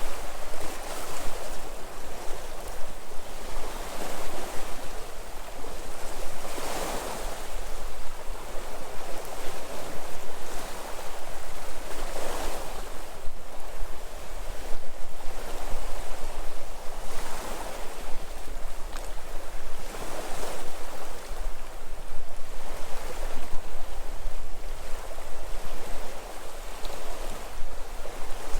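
Sea waves breaking and washing on a rocky shore, a continuous surf wash that swells every few seconds, with wind on the microphone giving a low rumble.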